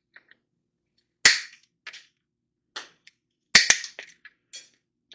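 Cutters snipping off the protruding ends of hot-staple repair staples melted into plastic, a series of sharp metallic snaps. The loudest come about a second in and twice in quick succession around three and a half seconds, with fainter clicks between.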